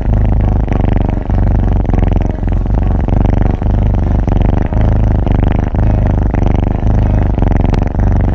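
Kitten purring loudly and steadily, a low rapid rattle with a brief dip about once a second as it breathes in and out.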